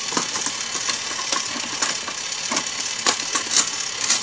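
Battery-powered toy Thomas engine running along its track: a steady motor whir with sharp clicks about twice a second.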